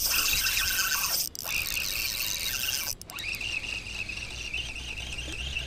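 Fishing reel being cranked in, a steady high-pitched whirring whine that wavers with the turns of the handle and stops briefly twice.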